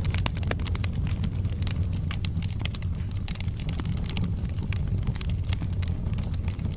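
Wood logs burning in a fireplace, crackling with many irregular sharp pops and snaps over a steady low rumble of the flames.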